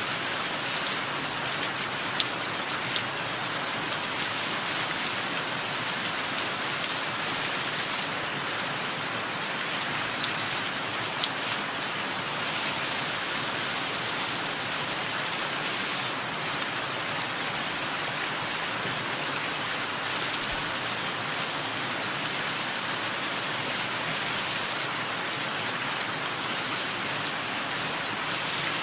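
Steady rain falling, with a bird's short high chirps over it, each sliding down in pitch, usually in quick pairs, coming every few seconds.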